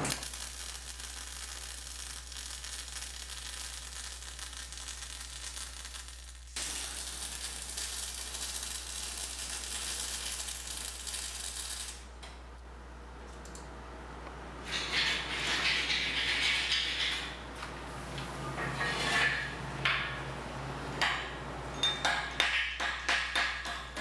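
MIG welder arcing on steel square tubing: a steady crackling hiss in several runs, broken by short pauses. Near the end a hammer taps on the steel weld, sharp metallic strikes about four a second.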